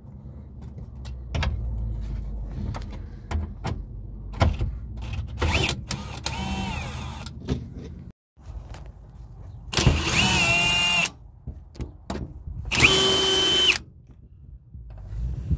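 Power drill with a 10 mm socket backing out door screws, running in three short spins of about a second each, with a whine that rises as each spin starts. Clicks and knocks of the tool and loose parts fall between the spins.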